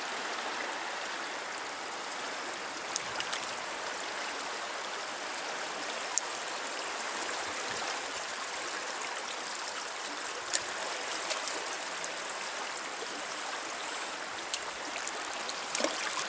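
Swollen, fast-flowing river current rushing steadily, with a few short sharp clicks now and then.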